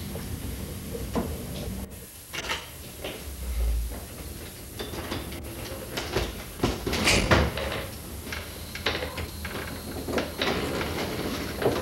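Household handling noises: a refrigerator door and then a room door being worked, a string of knocks, clicks and clunks, loudest about seven seconds in.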